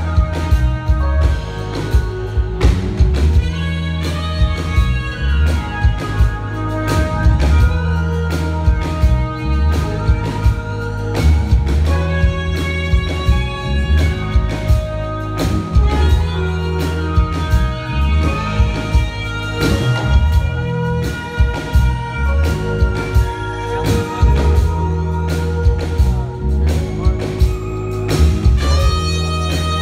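Live jazz band playing: the trumpet leads with held notes over a heavy electric bass line, a steady drum-kit beat and keyboards.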